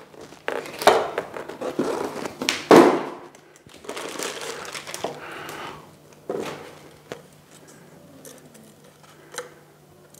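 Plastic packaging crinkling and rustling as parts are pulled out of a box, with several sharp knocks of hard pieces set down on a wooden table, the loudest about three seconds in. It then goes quieter as the clear acrylic skimmer body is handled.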